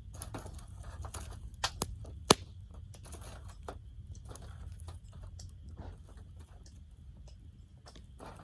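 Wood campfire crackling: scattered sharp pops and snaps, the loudest three coming close together about two seconds in, over a low steady rumble.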